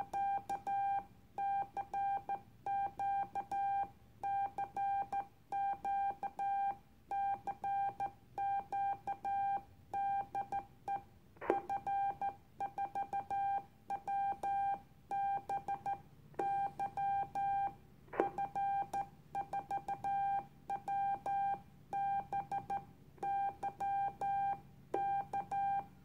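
Morse code keyed by hand on an Icom IC-251E 2 m transceiver: the radio's CW sidetone beeps out the dots and dashes of a general call, "CQ CQ CQ CQ DE F4WBY F4WBY K", at one steady pitch, with faint clicks from the key.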